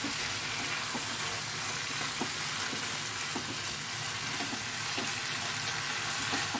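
A paste of sesame, tomato, ginger and green chilli sizzling steadily in hot mustard oil in a frying pan, stirred with a spatula.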